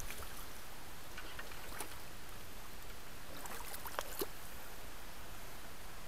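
Steady rush of water from a shallow stream flowing around the wader's legs, with a few faint clicks about two seconds in and again around four seconds in.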